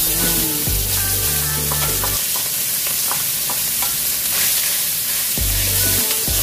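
Ground pork sizzling in hot oil in a nonstick wok as it is stirred and pushed around with a wooden spatula, the start of sautéing the meat. Background music with a bass line plays underneath.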